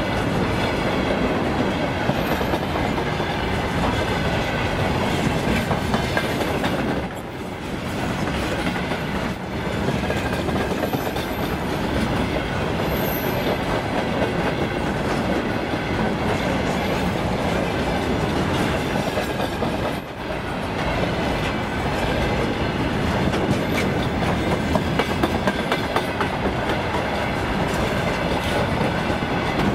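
Freight train of open gondola wagons rolling past at close range: a steady rumble and clatter of the wagon wheels over the rails, with a faint high ringing underneath. It dips briefly twice, about a third of the way in and again about two thirds of the way in.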